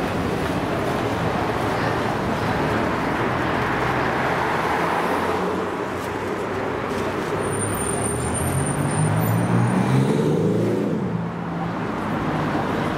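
City street traffic running steadily. About eight seconds in, one vehicle's engine rises in pitch as it accelerates, and is loudest around ten seconds in before falling away.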